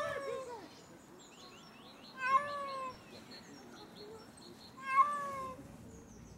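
A cat meowing: two drawn-out meows about three seconds apart, each sliding down in pitch at the end, with the tail of another meow at the very start.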